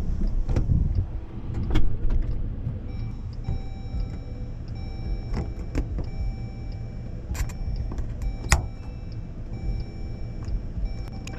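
Someone climbing into a car's back seat: shuffling and a rumble of movement, a car door shutting about two seconds in, then scattered clicks and knocks of handling in the cabin. Faint steady tones sound from about three seconds in.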